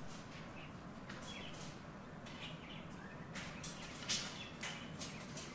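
Birds chirping in short, high calls, several in quick succession in the second half, over a faint steady hum.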